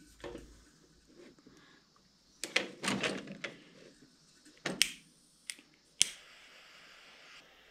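Lighter being flicked to heat the shrink tubing over a crimped steering cable: sharp clicks in a few small clusters, the loudest and last about six seconds in.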